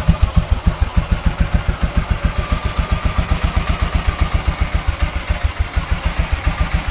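Royal Enfield AVL single-cylinder four-stroke engine idling with an even exhaust thump, roughly nine pulses a second.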